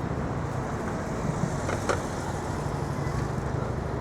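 Steady city street traffic: vehicle engines running with a low hum over road noise, with a couple of brief knocks about two seconds in.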